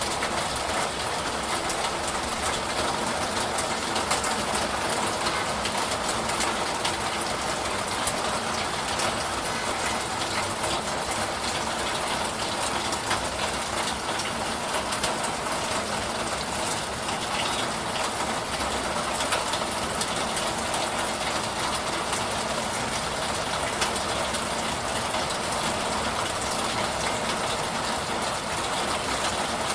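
Steady rain: an even, unbroken hiss with faint fine ticks of drops scattered through it.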